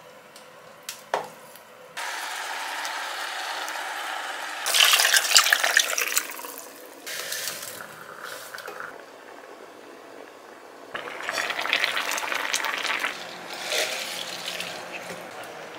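Liquid pouring into a cooking pan for a while, louder for a stretch, and later chopped onion and vegetables being tipped into the pan.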